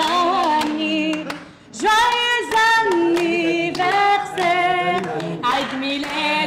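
A woman singing a birthday song unaccompanied, holding long notes with a wavering vibrato, with a short break about a second and a half in.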